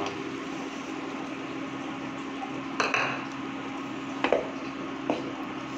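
A bowl and spoon knocking and clinking against a non-stick frying pan as ginger-garlic-chilli paste is scraped in: a clatter about three seconds in, two quick knocks a little later and one more near the end. Under it runs the steady hum of an induction cooktop.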